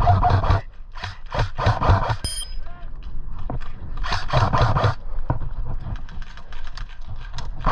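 Rustling and scuffing from movement close to the microphone, in several rough bursts with short clicks and knocks among them.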